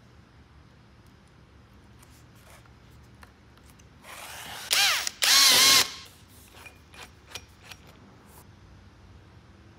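Cordless drill run in two short bursts about halfway through, its motor whine rising and falling with each trigger pull. A few light taps and scratches come before and after.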